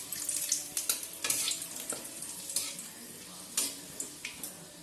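Bay leaves sizzling in hot mustard oil in a kadai, with sharp crackles and pops that thin out over the last couple of seconds.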